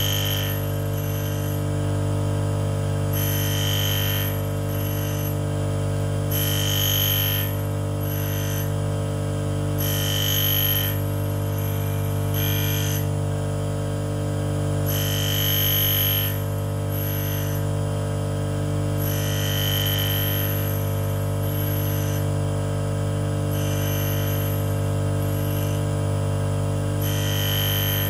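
Tool and cutter grinder motor running with a steady hum, while the grinding wheel takes short, high-pitched passes on the end cutting face of a carbide or HSS endmill about every two to four seconds as the cutter is moved across the wheel.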